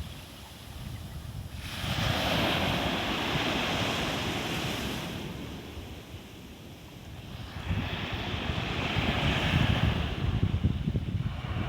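Ocean waves breaking and washing ashore in two surges, the first swelling about two seconds in and the second building from about eight seconds in, with a quieter lull between.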